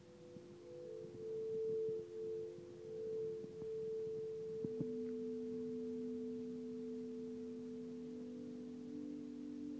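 Ambient drone music of a few steady, pure electronic tones held at fixed pitches and layered over one another. A lower tone comes in about halfway with a brief click, while a higher one runs throughout.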